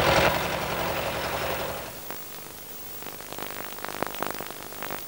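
Forklift truck engine running steadily, then fading away over the first two seconds. A few light knocks follow in the quieter second half.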